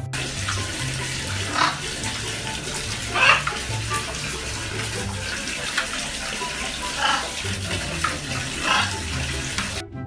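A stream of water pouring into a plastic bucket and splashing as a blue-and-yellow macaw bathes in it, with about five louder splashes as it shakes its wings, over background music.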